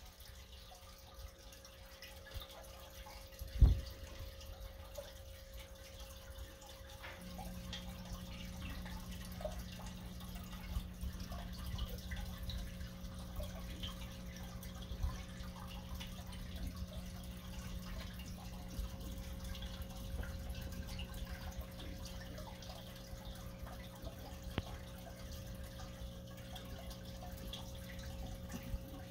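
Home aquarium water trickling and dripping with rising air bubbles, over a steady hum; a lower hum joins about seven seconds in. A single sharp thump sounds about three and a half seconds in.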